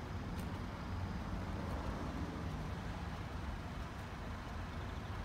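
Honda Acty HA4 mini truck's small three-cylinder engine idling steadily.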